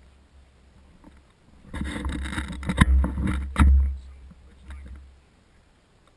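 A burst of rustling and handling noise on the microphone, about two seconds long, with a deep rumble and two sharp knocks near its end.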